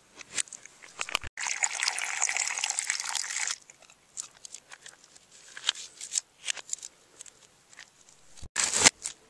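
Water splashing for about two seconds, then scattered light clicks and taps as a small plastic cup is handled, with another short splash near the end.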